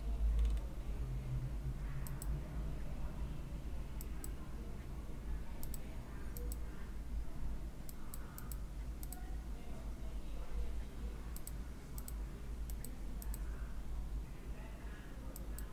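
Computer mouse buttons clicking, often in quick pairs like double-clicks, every second or two, over a steady low hum.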